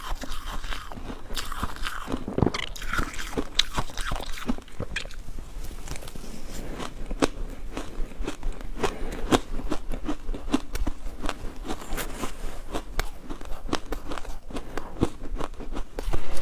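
Ice being bitten and chewed: a dense run of sharp crunching cracks, getting louder right at the end.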